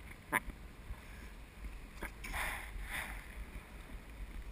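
Wind buffeting the microphone of a camera on a parasail harness, a steady low rumble with a sharp click about a third of a second in and a louder whoosh about two seconds in.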